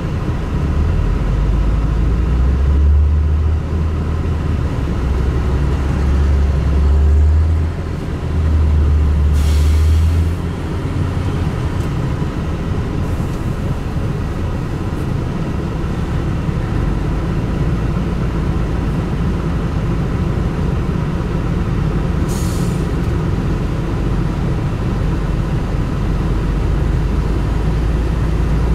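Hitachi 350H hydraulic excavator's diesel engine working under load as it digs and loads sand into a dump truck. A deep rumble is heaviest for the first ten seconds, then settles into a steadier running sound. Two short hisses, about nine seconds in and again about twenty-two seconds in.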